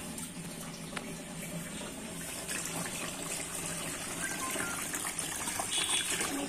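Water poured from a bucket into the plastic tank of a 38-litre air cooler through its top fill opening, splashing steadily as the tank fills, a little louder near the end.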